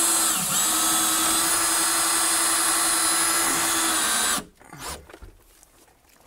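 Cordless drill running at a steady speed against a van's wall panel, with a brief dip in speed about half a second in. It stops about four seconds in.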